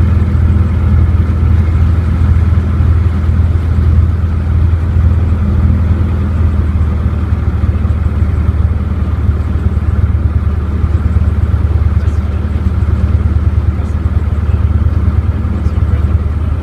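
Aircraft engine noise: a loud, steady low drone with a fast, even flutter that holds unchanged.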